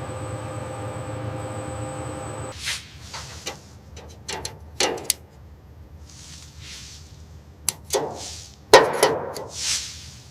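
Steady industrial machinery hum with several held tones that cuts off about two and a half seconds in, followed by scattered metallic clanks and knocks with a few bursts of hissing, the loudest clank near the end.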